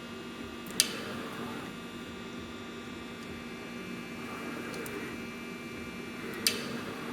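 Steady electrical hum with several steady tones, broken by two sharp clicks, one about a second in and one near the end.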